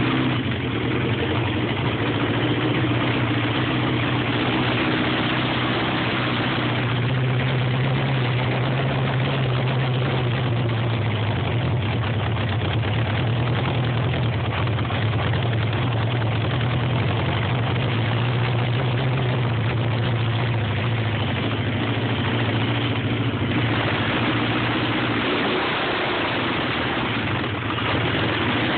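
Vehicle engine idling steadily with a strong low hum: a rough idle.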